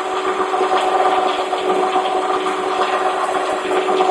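Electric winch motor running steadily with a constant whine and a rough low rattle, paying out cable to lower an amateur radio antenna mast.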